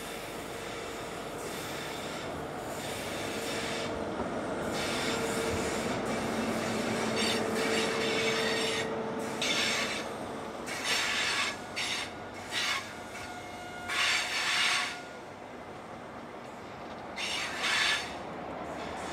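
InterCity 125 high speed train passing on a curve: steady rumble of the diesel power car and rolling wheels, with a faint steady whine in the first half. From about halfway through, short high squeals of wheel flanges on the curved rail come one after another as the coaches pass.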